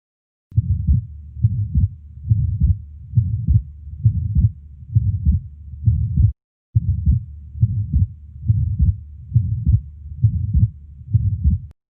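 Heartbeat heard through a stethoscope, a regular low thudding pulse of about 80 beats a minute. It breaks off for a moment about halfway and stops shortly before the end.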